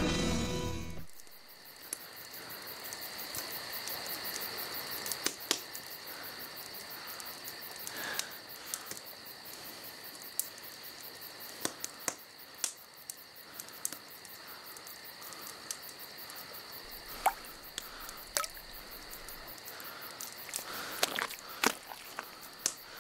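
Crickets chirping: a steady high trill with fast regular pulses, as in a night ambience, broken by scattered sharp clicks.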